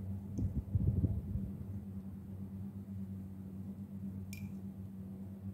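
Steady low hum, with a few soft low thumps about a second in and a brief click about four seconds in.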